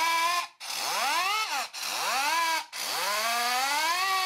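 Small brass model steam siren run on low-pressure compressed air from an air blow gun: a string of wails, each rising in pitch as the air comes on and dropping as it is shut off, with air hiss behind. Two short wails follow the end of an earlier one, then a longer one starts about three seconds in and holds near its top pitch.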